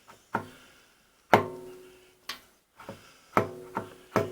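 Repeated metallic clunks, about seven, each ringing briefly, as the drill press's step pulley is pushed up and down by hand on its spindle. The pulley moves about half an inch while the quill stays put, a sign of unwanted play in the spindle assembly.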